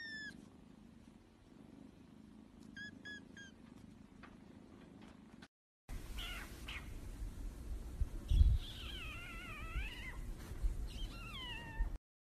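A kitten mewing: a short falling mew, then three quick high mews about three seconds in. Later comes a puppy's wavering whine, with a thump just before it and a few falling whimpers after.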